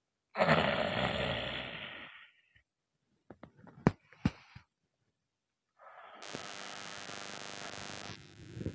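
A woman's long, heavy exhale, loud at first and fading away over about two seconds. A couple of sharp clicks follow a few seconds in, then a steady hiss.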